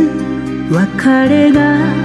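Music from a Japanese enka ballad: a steady bass under a melody line that slides up in pitch about two-thirds of a second in, then holds with a slight waver.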